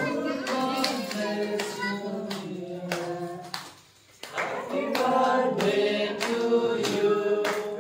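Several voices singing a birthday song together, with a brief pause about four seconds in, then hand-clapping along with the singing.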